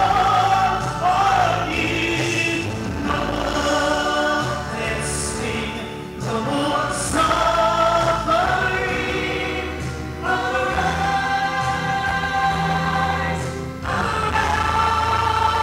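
A woman singing gospel into a microphone, holding long, sliding notes over steady low instrumental accompaniment.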